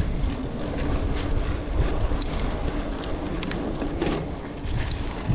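Mountain bike descending a trail: wind rumbling on the microphone and tyres on dirt, with scattered clicks and rattles from the bike over bumps.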